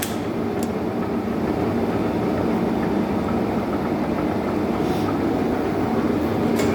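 1M63 engine lathe running, with a steady mechanical hum from its drive and gearing. A few short sharp clicks come near the start and again just before the end.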